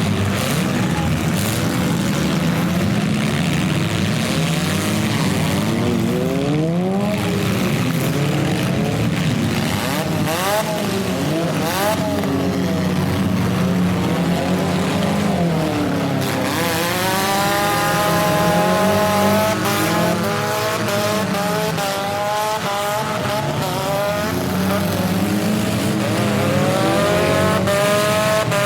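Several compact car engines revving hard at once, their pitch repeatedly climbing and dropping as the cars accelerate and back off, with a few sharp bangs of impact.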